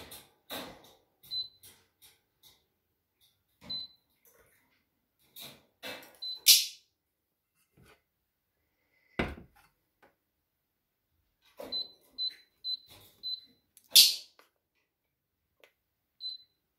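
Induction hob touch controls beeping as keys are pressed: short, high single beeps, a quick run of four about 12 s in, and two louder, longer tones about 6.5 s and 14 s in, with light taps of a fingertip on the glass. A dull knock about 9 s in as the steel saucepan is moved on the glass top.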